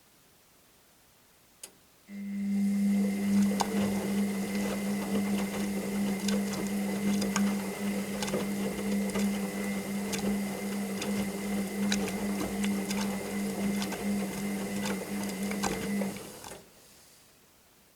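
Washing machine motor turning the drum: a click, then a steady hum with a high whine and scattered clicks for about fourteen seconds, which winds down and stops near the end.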